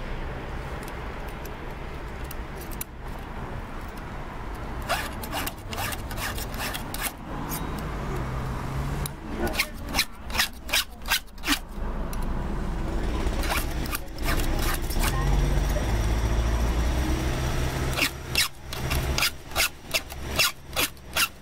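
A flat file being stroked by hand across the steel links of a Husqvarna chainsaw chain, in short runs of quick rasping strokes. There is a group of four or five strokes about ten seconds in and another of about six near the end.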